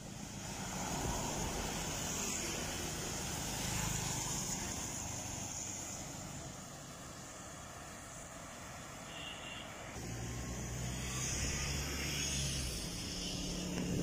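Road traffic on a wet road: cars and motorbikes passing, with steady tyre hiss and engine noise. A low engine hum grows about ten seconds in as a vehicle comes closer.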